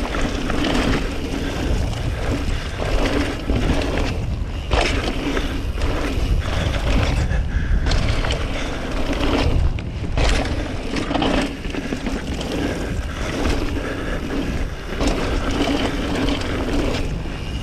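Mountain bike riding fast down a dirt trail: a continuous rush of tyre noise on packed dirt and dry leaves, with wind buffeting the microphone and the bike rattling over bumps. There are a few brief lulls and several sharp knocks.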